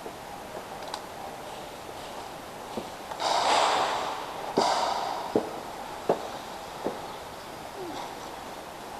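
Two loud, rushing breaths blown close to the microphone, each about a second long, followed by four sharp clicks less than a second apart.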